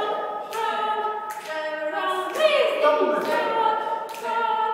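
Several voices singing a cappella, layered over one another: held notes and short repeated sung phrases, with crisp sharp attacks recurring every half-second to second.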